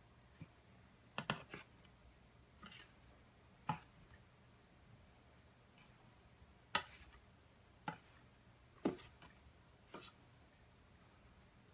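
Toad striking at mealworms on a tile floor: short sharp clicks and taps from its mouth snapping shut, a few seconds apart and some in quick pairs, over quiet room tone.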